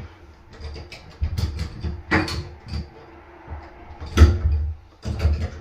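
Irregular knocks and clunks from handling and positioning the fire door closer's arm, with the loudest clunk about four seconds in.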